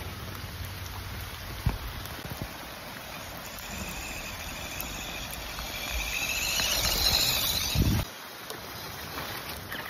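Steady hiss of rain and running water. About six seconds in it swells to a louder rushing sound that cuts off suddenly, with a single sharp click about two seconds in.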